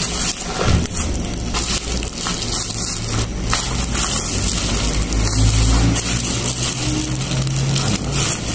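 Plastic bubble wrap crinkling and crackling continuously as a bubble-wrapped package is handled and pulled open.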